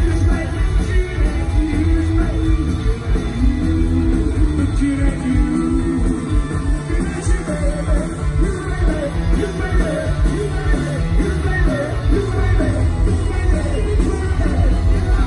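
Punk rock band playing live through a PA: electric guitar, bass and drums, with a man singing lead.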